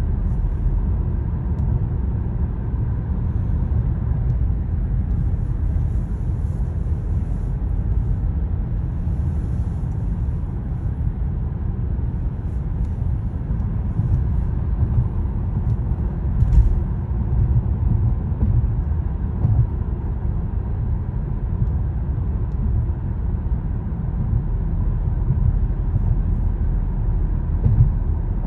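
Steady low road rumble of a car being driven, heard from inside the cabin: tyre and engine noise at constant speed. One brief click a little past the middle.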